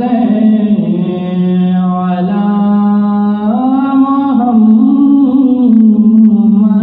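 A man singing an Urdu naat (devotional poem in praise of the Prophet) solo, with no instruments, in long held notes that step up and down in pitch.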